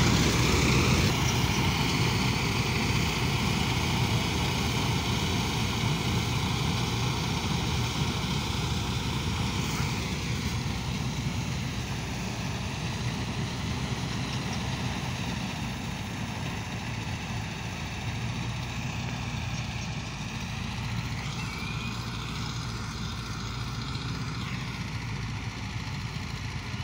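Massey Harris combine harvester running and threshing as it drives off across the field: a steady engine and machinery drone that slowly fades with distance.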